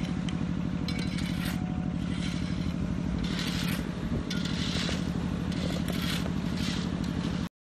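Volvo crawler excavator's diesel engine running steadily under hydraulic load, with bursts of scraping and rattling as the bucket works the soil and dumps a load of dirt near the end. The sound cuts off abruptly just before the end.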